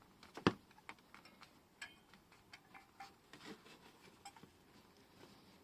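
Light clicks and taps of small snap fastener parts being handled and pressed together on paper, with one sharper click about half a second in.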